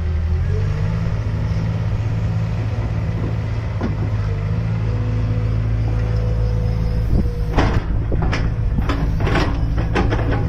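Hydraulic excavator's diesel engine running, its revs stepping up about half a second in. From about two-thirds of the way through, a quick run of sharp knocks and clatter over the engine.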